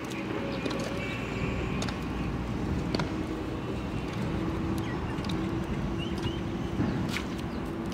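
Steady low drone like a distant motor running.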